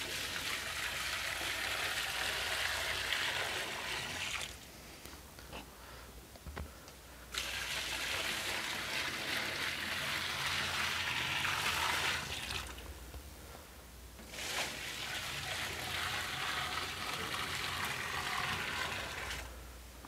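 Water poured from a bucket into a top-load washing machine's tub over the clothes, in three pours of about four to five seconds each with short gaps between. The machine is being filled by hand.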